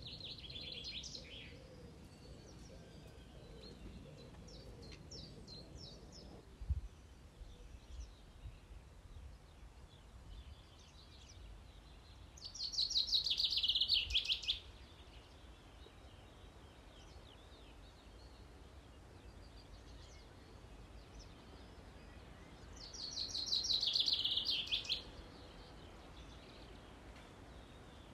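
A bird singing a loud, rapid trilled phrase twice, about ten seconds apart, with a few faint chirps about five seconds in, over steady low outdoor background noise.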